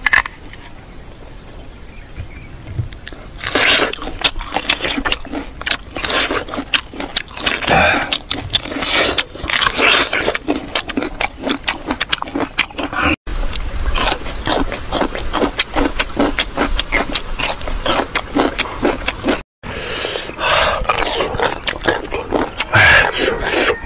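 Close-up crunching and chewing of crisp raw plums and pickled vegetables: rapid runs of sharp crackling crunches, starting a few seconds in and breaking off abruptly twice.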